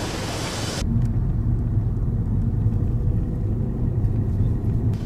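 Outdoor street noise, a broad hiss, cuts off suddenly about a second in, giving way to the steady low rumble of a Hyundai Elantra heard from inside its cabin while it drives.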